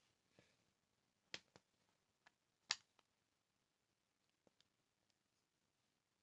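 A few small sharp clicks and taps of plastic and metal as a Hyundai smart key fob and its CR2032 coin cell battery are handled, two clearer clicks standing out among fainter ticks, with near silence between them.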